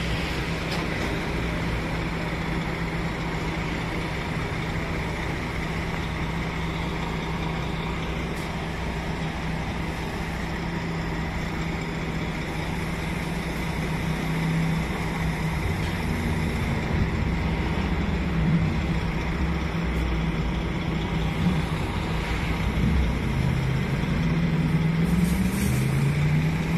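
Engine of a crane truck running to drive its hydraulic crane, a steady hum that in the second half wavers and glides up and down in pitch as the crane is worked.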